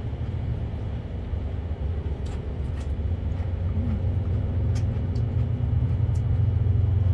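A low rumble that swells toward the end, with a few light clicks of chopsticks against rice bowls.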